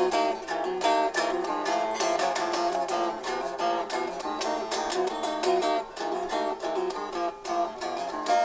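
Squier Stratocaster electric guitar with a Floyd Rose locking tremolo, played in a quick run of picked single notes. It sounds like it needs to be tuned: out of tune, which the owner puts down to the locking nut not being locked.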